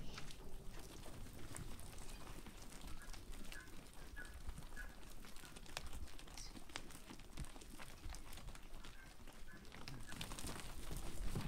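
A flock of sheep moving about on stony ground: scattered clicks and shuffles of hooves and bodies, with a few faint bird chirps.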